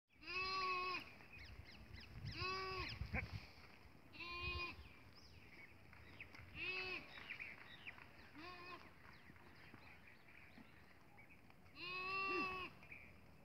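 Livestock bleating six times, short calls that each rise and fall in pitch, about every two seconds with a longer pause before the last. Birds chirp faintly in between.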